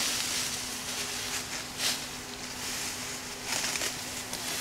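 Rustling of rice stalks in the paddy during harvest, with a couple of louder swishes, over a faint steady hum.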